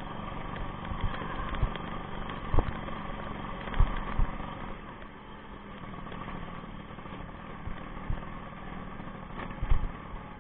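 Motorcycle engine running steadily while riding over a rough dirt road, with several sharp thumps from bumps, the loudest about two and a half, four and nine and a half seconds in.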